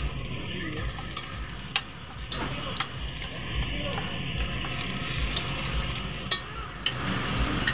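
Takoyaki cooking in oil in a cast-iron takoyaki pan, a steady sizzle, with a few sharp clicks scattered through it.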